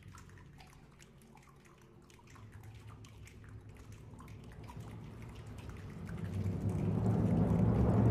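Wind band playing a quiet textural passage: scattered soft clicks and drip-like taps over low held notes. From about six seconds in, the ensemble swells into a loud, dense crescendo.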